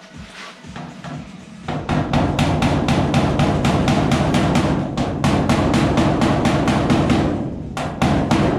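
Hammer striking the steel sheet metal of a car's front quarter panel in a fast run of blows, shaping a welded-in section so it blends in. A few lighter knocks come first, then a steady barrage of blows with a short break near the end.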